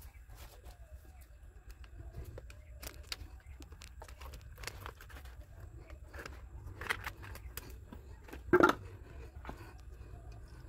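Scattered light clicks and rustles of handling over a low steady hum, with one short loud sound about eight and a half seconds in.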